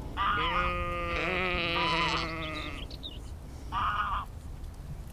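Sheep bleating: several long bleats overlap through the first three seconds, then one shorter bleat comes about four seconds in. A low steady rumble runs underneath.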